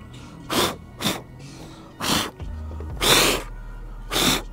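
Cloth wiping a painted truck hood, a string of short rubbing swishes at an uneven pace, about one or two a second.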